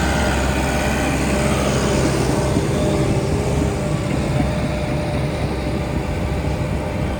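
Heavy diesel earthmoving machine engine running steadily, with a steady whine above the low engine note.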